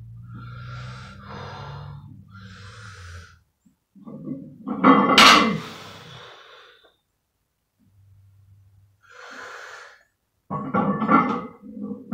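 A weightlifter's heavy breathing and straining grunts while deadlifting a 500 lb barbell for reps, with a loud sharp knock about five seconds in and a run of hard grunts near the end as he pulls.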